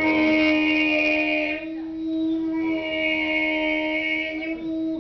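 A man's voice imitating a saw cutting through wood: one long, steady buzzing whine at a single pitch, its higher part fading for a moment about two seconds in before coming back.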